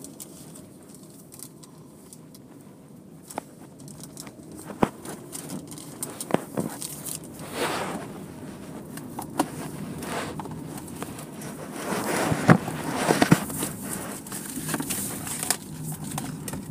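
Automatic car wash heard from inside the car: scattered clicks and knocks against the body, with two swells of rushing noise as the wash equipment passes over.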